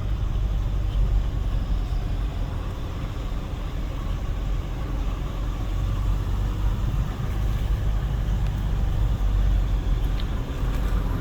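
Nissan pickup's turbocharged engine and road noise heard from inside the cab: a steady low rumble as the truck keeps climbing a steep grade under load.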